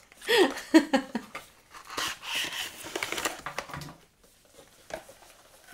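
A brief voice sound, then packaging rustling and crinkling with quick small clicks for about a second and a half as a package is worked open, ending in one faint click.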